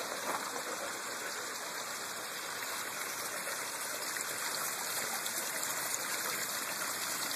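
Water flowing steadily along a small man-made stream over rocks.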